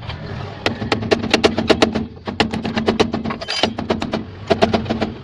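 Ratchet wrench clicking rapidly as it turns a tie-rod-end nut, in three bursts of strokes at about eight clicks a second, each burst over a steady low hum. There is a short hiss between the second and third bursts.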